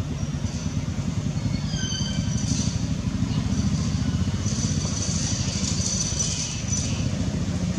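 Steady, rapidly pulsing low engine rumble, as of a motor vehicle running close by. A brief high squeal comes about two seconds in, and a high hiss with faint whistling tones about halfway through.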